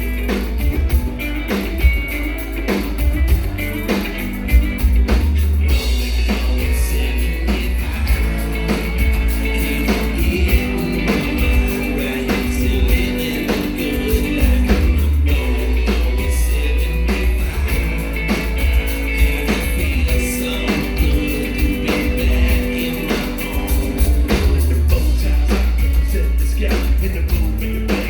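Live band playing a rock song through a PA: a steady drum beat, heavy booming bass and guitar.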